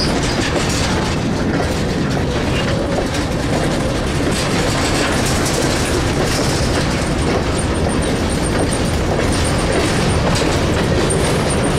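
Covered hopper cars of a freight train rolling past at close range, steel wheels and trucks rattling steadily on the rails.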